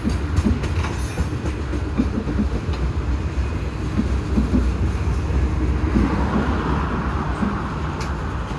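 Freight train cars (tank cars, then autorack cars) rolling past at close range: a steady low rumble of wheels on rail with uneven clacks and knocks.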